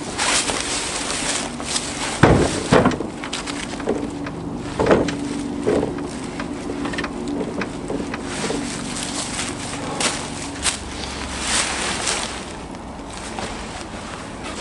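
Oak firewood rounds being lifted and loaded into the cargo bed of a Polaris Ranger utility vehicle, with several heavy thuds as the rounds land and knock against each other. A steady low hum underneath stops about ten seconds in.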